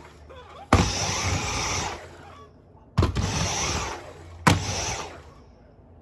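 Dyson V10 cordless cyclone vacuum cleaner motor starting with a high whine three times in short runs, each cutting in abruptly and dying away after about a second. The cleaner has lost its suction and picks up no dirt.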